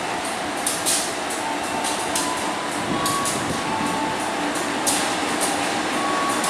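KAI diesel-electric locomotive running light, its engine running steadily as it rolls slowly along the track through the station, with scattered sharp clicks over the steady noise.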